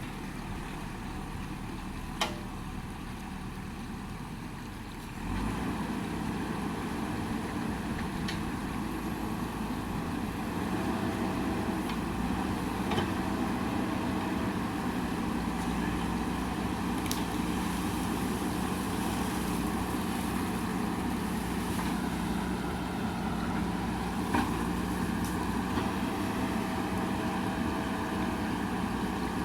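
JCB backhoe loader's diesel engine running under work, getting louder about five seconds in, with a few sharp knocks.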